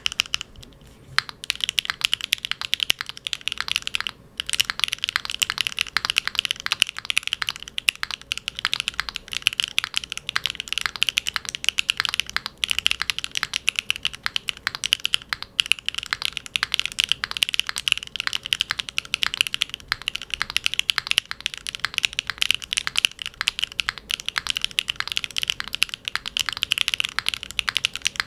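Typing on a Neo 70 mechanical keyboard fitted with HMX Pink Pig factory-lubed linear switches (PC top housing, P5 bottom housing): a fast, continuous run of keystrokes, with brief lulls about one and four seconds in.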